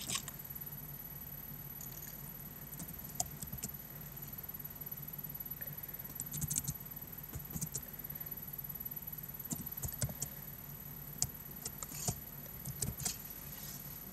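Irregular, unhurried keystrokes on a computer keyboard, single clicks with gaps between them, over a steady low hum.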